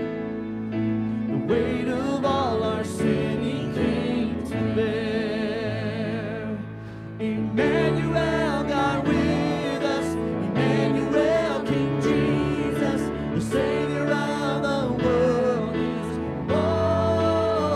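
Church worship band and singers performing a Christmas worship song, with held, wavering vocal lines over the band. The music thins briefly about two-thirds of the way through the first half, then comes back fuller and louder.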